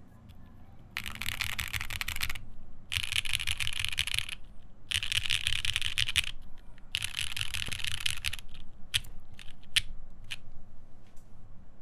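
Mechanical keyboard with lubed Alpaca v2 linear switches, a half FR4 plate and GMK keycaps, typed fast in four bursts of quick keystrokes about a second and a half each, followed by a few single key presses near the end.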